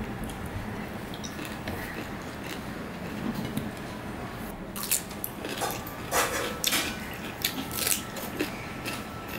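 A person biting into and chewing raw cucumber slices, with a run of crisp crunches beginning about halfway through.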